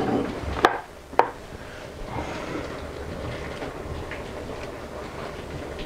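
Two sharp clicks of kitchenware in the first second or so, then a steady low rushing noise.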